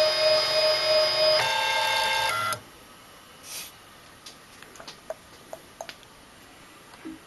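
Ultimaker 3D printer's stepper motors whining in steady pitched tones, the pitch jumping twice, then stopping abruptly about two and a half seconds in; a few faint ticks follow.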